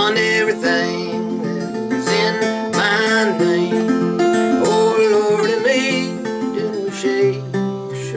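Fingerpicked acoustic blues on a 1972 Stella Harmony 3/4-size guitar with a chrome tailpiece: steady thumbed bass notes under a picked melody on the treble strings, with a bright, dry tone.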